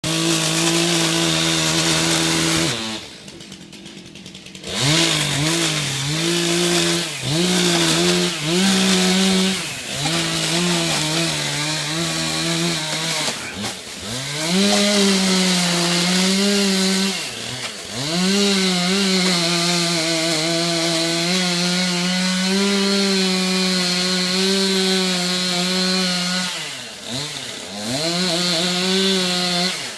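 Gas chainsaw running at high revs, cutting, its pitch dipping and climbing back again and again as the throttle is eased and reopened. About three seconds in it drops to a quieter idle for nearly two seconds before revving up again.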